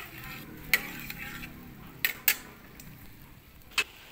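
A metal spatula stirring in an aluminium wok, clicking sharply against the pan about five times, over a faint sizzle of melting butter.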